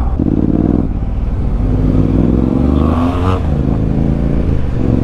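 Motorcycle engine running at road speed, with the engine of a passing jeep rising and falling in pitch as it goes by.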